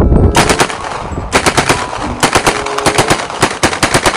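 Submachine gun fired in several short fully automatic bursts of rapid shots, starting about a third of a second in.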